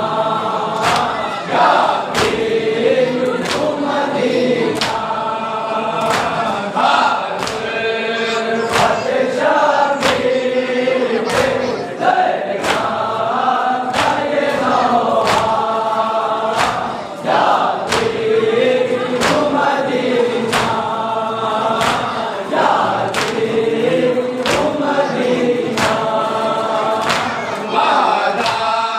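Chorus of men chanting a noha, a Shia lament, in unison in repeated melodic phrases, with a steady beat of open-hand chest strikes (matam) keeping time.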